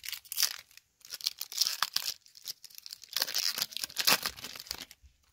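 A baseball card pack's wrapper being torn open and crinkled by hand, in three crackly bursts.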